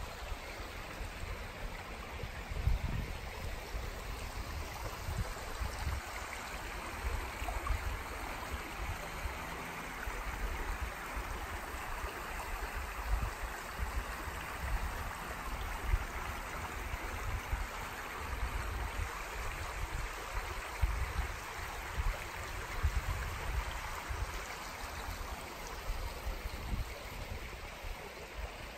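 Shallow stream flowing over stones and gravel, a steady rushing and babbling, with irregular low rumbling underneath.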